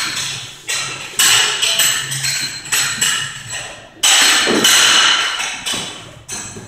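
Skipping rope slapping a hard floor in repeated sharp strikes at a slow, uneven pace, each followed by a fading tail.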